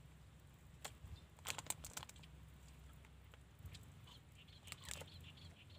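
Thin clear plastic food container crinkling and clicking as it is handled, in short crackly bursts about a second in, again around two seconds, and once more near the end.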